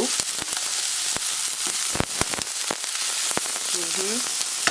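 Chopped white onions sizzling in grapeseed oil in a frying pan: a steady hiss with frequent irregular crackling pops of spattering oil.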